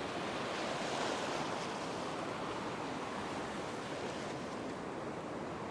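Ocean surf breaking and washing in over shallow sand: a steady rushing wash that swells slightly about a second in.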